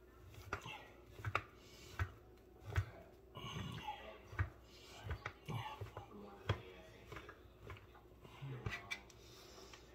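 Scattered sharp clicks and knocks of kitchen utensils and bowls being handled at uneven intervals, with faint voices in the background.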